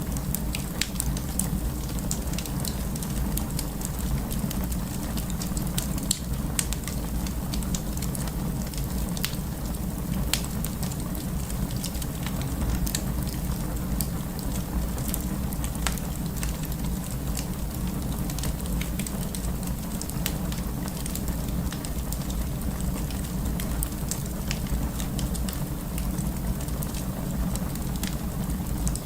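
Wood burning in a fireplace: steady crackling with many small sharp pops over the low, even noise of the flames.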